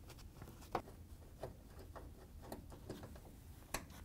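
A few faint, scattered clicks and ticks of a Torx 20 screwdriver working out the screws that hold a front-load washer's door switch, the sharpest click coming just under a second in.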